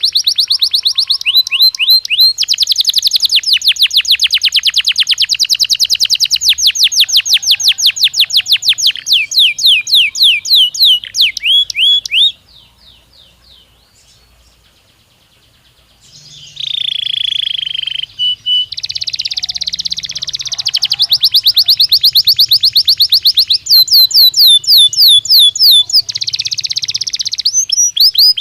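Domestic canary singing: long trills of rapid, repeated high sweeping notes, about eight a second, broken by a pause of about four seconds near the middle before the song resumes.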